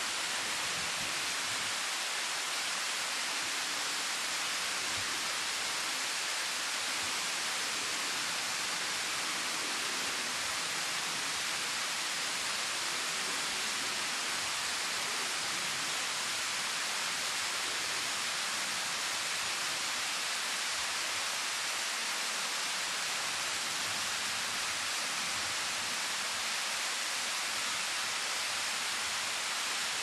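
Waterfall: thin streams of water falling down a steep rock face and splashing onto the stone, an even, steady hiss.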